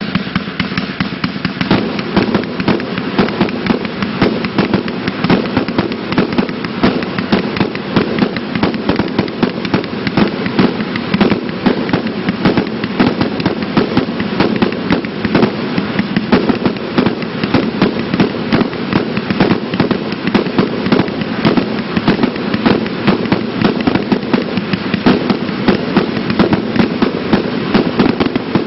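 A multi-shot consumer firework battery firing a continuous rapid barrage, with launch thumps, bursts and crackle coming several times a second without a break.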